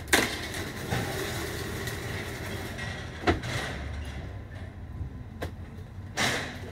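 Knocks and scraping as a Masonite door slab is shifted about on the bare metal floor of a cargo van: a sharp knock at the start, another about three seconds in, and a short scrape near the end.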